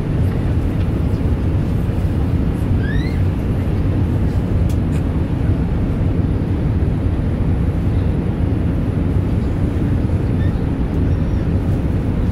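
Steady low-pitched rumble of engine and airflow noise inside the cabin of an Airbus A380 airliner, even in level throughout.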